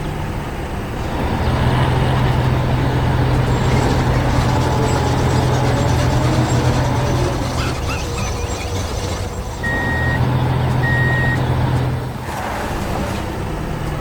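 Heavy construction vehicle's diesel engine running with a steady low drone, easing off briefly about nine seconds in, and two short high beeps of a reversing alarm around ten and eleven seconds.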